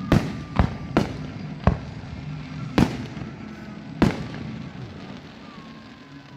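Fireworks display: aerial shells bursting with six sharp bangs in about four seconds, at uneven intervals.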